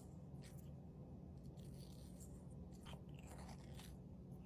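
Faint, short scrapes of a metal spoon working around a kiwi between the flesh and the skin, over a low steady hum.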